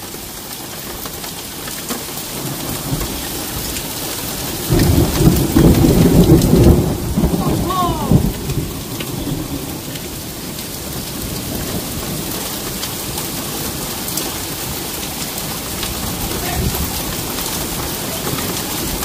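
Heavy rain and hail pelting down steadily on cars and paving. About five seconds in, a loud rumble of thunder follows a nearby lightning flash and rolls on for about three seconds before fading back under the rain.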